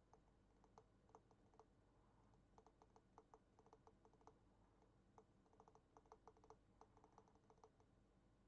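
Faint clicking of computer keyboard keys, typed in irregular runs of quick strokes with short pauses between them.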